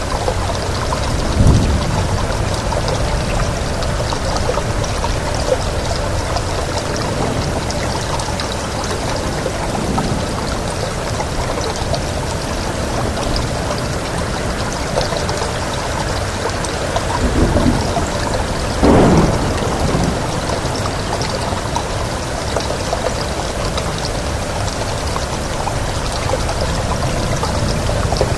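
Steady heavy rain. Brief low rumbles swell up a few times, loudest about a second and a half in and again near nineteen seconds.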